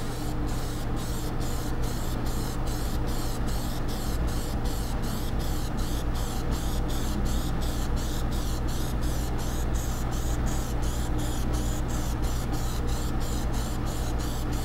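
Aerosol can of gunmetal gray Plasti Dip spraying a steady hiss through a rubber mesh mask, fluttering about three times a second, over a steady low hum.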